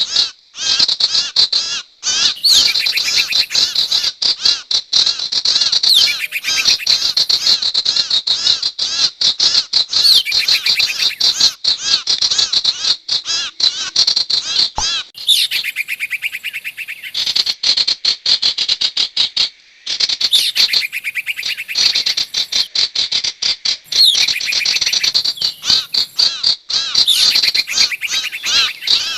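Bird-lure recording of sirtu bird calls: dense, rapid high-pitched chirping notes repeated without a break.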